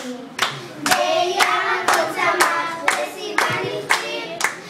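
Children singing a Hebrew Rosh Hashanah song together while a group of adults claps along in time, about two claps a second.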